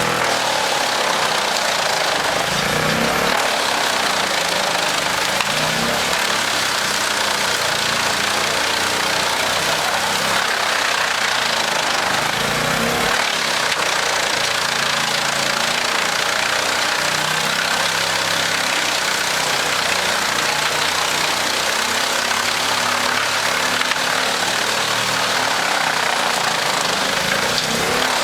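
Large wood chipper running, with a steady engine drone under a dense rushing noise. The engine note swells briefly a couple of times.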